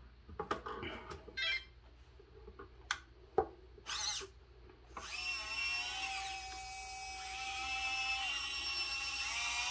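Small knocks and clicks, then from about five seconds in the electric drive motors and gearing of a 1/16 Bruder CAT Delta RC track-loader conversion whine steadily, the pitch sliding up and down as the loader is driven.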